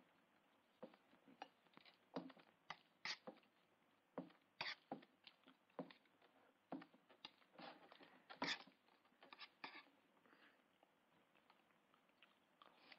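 Faint, irregular clinks and scrapes of a spoon in a pan of beans as someone eats greedily, in quick uneven knocks with a few louder strikes.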